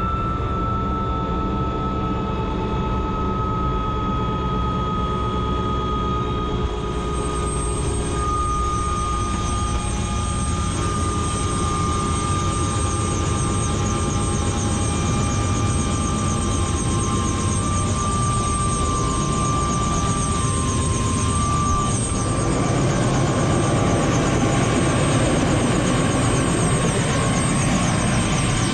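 Helicopter running steadily: rotor and turbine engine noise with a high engine whine that slowly falls in pitch. It grows a little louder in the last several seconds.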